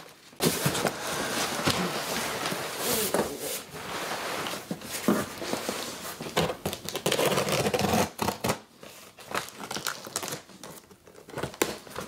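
Paper and plastic packaging crinkling and rustling as it is handled, then a few sharp scissor snips cutting into a cardboard box near the end.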